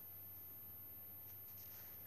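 Faint rustle of a paper tissue handled against the skin to wipe off a paste, strongest about one and a half seconds in, over a steady low hum.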